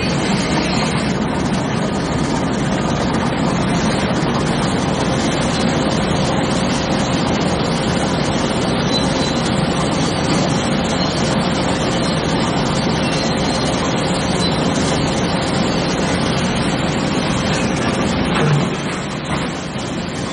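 A heavy vehicle engine running steadily with a constant dense noise. A brief louder knock comes near the end, and after it the sound drops a little.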